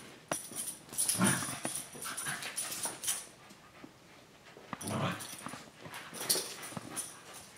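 Cockapoo dog and puppy playing, with short dog vocalizations in two bursts, about a second in and again around five seconds in, among light scuffling and clicks.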